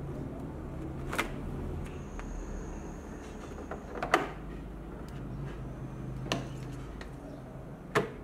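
Sharp plastic clicks from handling a Nescafé Dolce Gusto capsule and locking the capsule holder into a Dolce Gusto Genio S coffee machine, four in all, the loudest about four seconds in, the last as the top of the machine is pressed, over a steady low hum.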